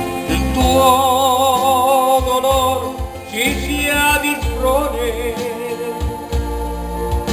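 A devotional hymn to the Madonna: a singing voice with wide vibrato over guitar and bass accompaniment.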